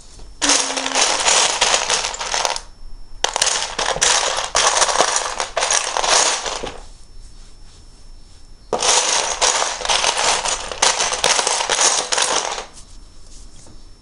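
Loose plastic Lego bricks clattering as a hand rummages through a pile of them, in three spells of several seconds each with short quiet gaps between.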